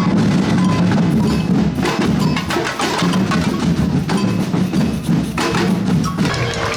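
Batucada percussion band playing: deep bass drums pulsing under a dense stream of fast, sharp drum and wood-block strikes.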